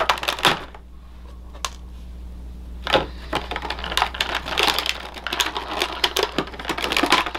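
Plastic toy packaging being cut and pulled open: a few sharp clicks, then from about three seconds in a near-continuous crackle and clicking of the plastic.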